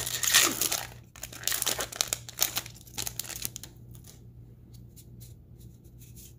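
Foil wrapper of a Magic: The Gathering booster pack being torn open and crinkled by hand, in two spells of loud crinkling over the first three and a half seconds. The cards are then handled and fanned, with light ticks of card on card.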